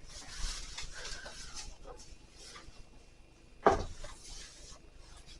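Packaging being handled during unboxing: rustling in short stretches, with one sharp knock a little past halfway as something is set down or bumped.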